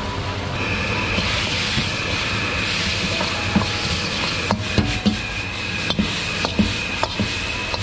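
Noodles stir-frying in an iron wok over a high gas flame: a steady sizzle and burner rush, with the steel ladle clanking against the wok again and again from about halfway in. A steady high whistle runs through most of it.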